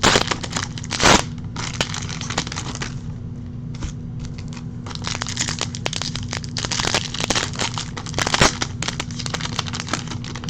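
Foil trading-card pack wrappers crinkling and being torn open, with irregular bursts of crackling and sharp clicks.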